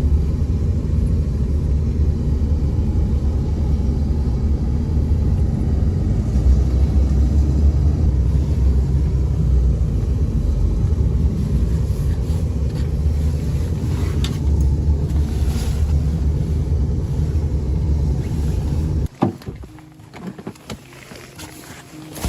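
Steady low rumble of a car driving, heard from inside the cabin, that cuts off abruptly about nineteen seconds in. A much quieter stretch with faint music follows.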